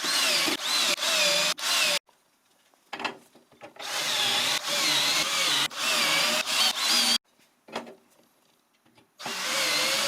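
Power drill driving screws into the metal corner brackets of a battery rack, in three runs: the motor whine wavers in pitch as each screw takes up, with short quiet pauses and a few clicks between runs.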